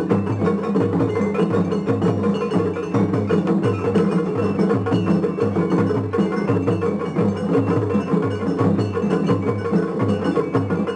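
Japanese festival hayashi from several carved floats' bands playing against each other at once: taiko drums beating a steady rhythm of about two to three strokes a second, with bell-like metal clangs and high flute tones over it.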